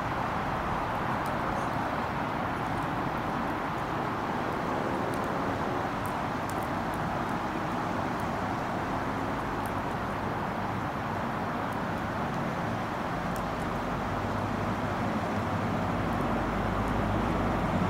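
A train moving through the station, heard as a steady rushing noise with a deep rumble that builds over the last few seconds.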